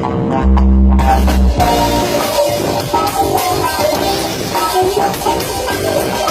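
Live band playing rock music with drums and guitar: a loud, held low note about half a second in, then the full band carries on playing.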